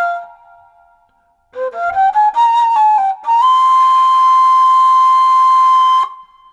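Flute music. A phrase of falling notes ends at the start, then after a short pause come stepping notes and a long held high note, about three seconds long, that stops just before the end.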